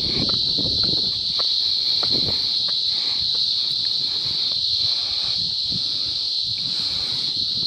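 A chorus of cicadas buzzing steadily at one shrill, high pitch, without a break.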